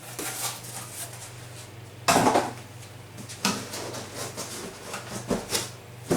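Reloading-press parts and packaging being handled and set down during unboxing: a few knocks and rustles, the loudest about two seconds in, over a steady low hum.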